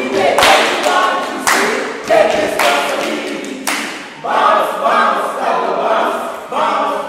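A group of people singing together, broken by several sharp noisy bursts.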